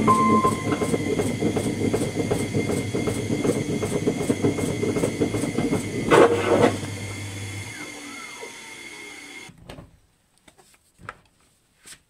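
Fagor front-loading washing machine running, its drum full of washing-up-liquid suds, with a steady hum and an even rhythmic beat of about two to three strokes a second. About six seconds in there is a brief loud surge; then the machine winds down and fades to near silence, with a few faint knocks.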